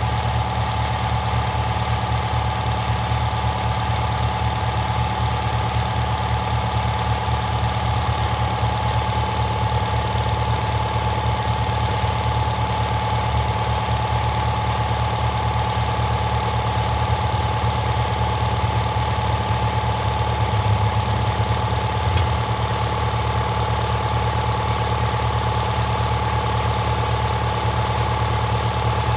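A machine running steadily: a constant low drone with a steady whine on top, unchanging throughout, and a single light tap about two-thirds of the way through.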